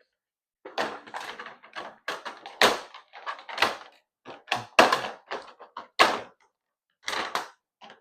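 Cardboard box and packaging being handled and opened: a quick run of knocks, clicks and scrapes with short gaps between them.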